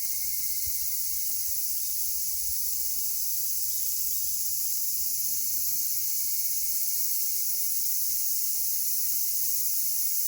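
Dense, steady high-pitched chorus of insects, holding at an even level with no breaks.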